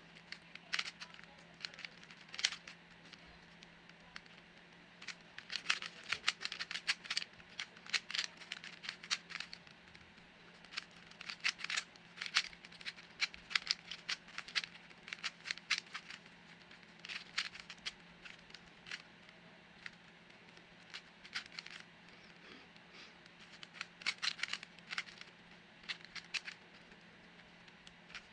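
Rubik's cube being turned by hand: bursts of quick plastic clicks and clacks as the layers are twisted, with short pauses between bursts.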